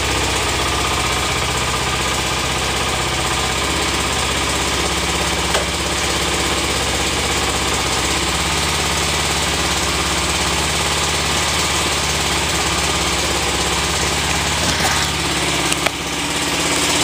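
2007 Kawasaki Ninja 250's parallel-twin engine idling steadily, warming up just after a cold start from sitting a week. A brief knock near the end.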